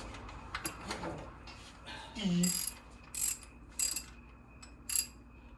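Hand ratchet wrench turning a bolt, with short bursts of ratchet clicking on each back-swing of the handle, about four strokes in the second half.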